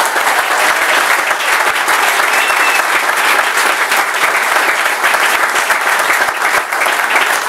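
Crowd applauding: a dense, steady clapping of many hands.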